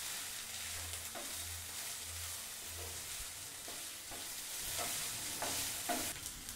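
Chopped carrots, beans, onion and green chillies sizzling in oil in a nonstick pan, stirred with a wooden spatula that scrapes softly against the pan.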